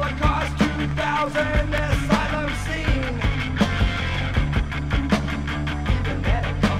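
Rock band music played from a vinyl record, with a steady drum beat under a full band. Gliding pitched lines come in near the start and again near the end.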